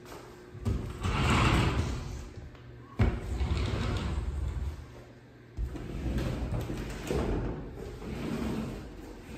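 Sliding closet doors run along their track, making a rumbling, rolling noise, with a sharp knock about three seconds in.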